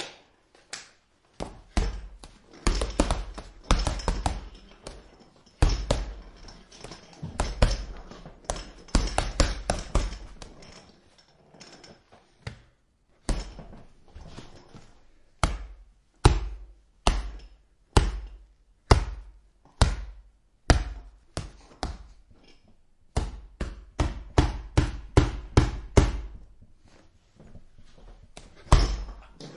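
Boxing gloves punching a heavy bag, each hit a deep thud. Quick irregular combinations come first, then steady single punches about one a second, a faster flurry a few seconds from the end, and one last punch.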